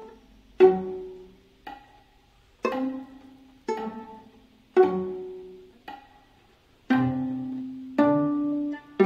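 Viola plucked pizzicato, single low notes at a slow tempo of about one a second, playing a tango line. The last two notes hold on longer and steadier.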